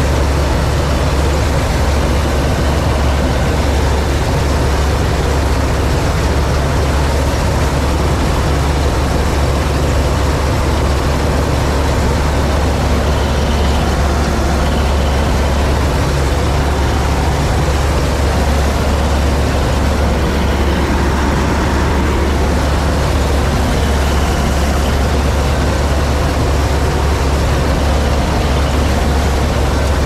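Massey Ferguson 86 combine harvester running steadily while cutting wheat: its engine and threshing machinery make a loud, even drone with a strong low hum, heard from the driver's seat.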